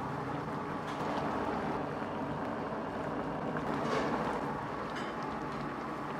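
Tomato and beef brisket stew boiling hard in a wok over a high flame: steady bubbling over a continuous rushing noise, swelling slightly about four seconds in.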